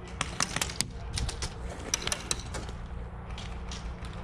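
Scattered, irregular sharp clicks of airsoft gunfire, several a second, coming and going in quick bursts.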